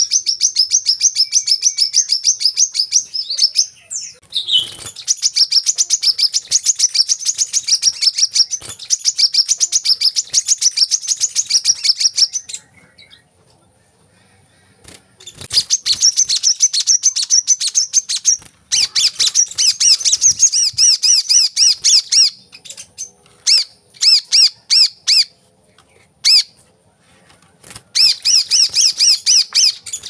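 Male brown-throated sunbird (kolibri kelapa) singing: long runs of rapid, high-pitched chattering notes, a pause of about three seconds near the middle, then more runs that break into short separate bursts toward the end.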